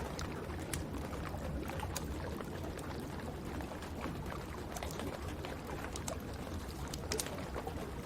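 Wood fire crackling in a fireplace, scattered sharp pops and snaps over a steady rush of falling rain.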